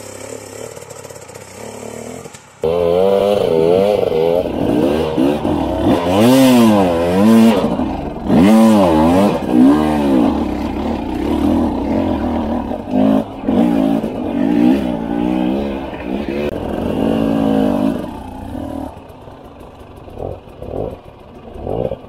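Two-stroke enduro dirt bike engine heard from on the bike, revved up and down over and over on a rough trail. It is quieter for the first few seconds, loud from about three seconds in, and drops back to short blips of throttle near the end.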